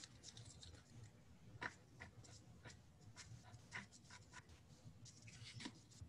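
Near silence: room tone with a low steady hum and a dozen or so faint, scattered clicks and scratches.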